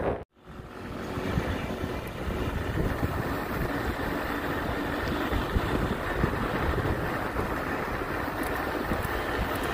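Steady road and engine noise of a moving vehicle, a low rumble under an even hiss, fading in after an abrupt cut near the start.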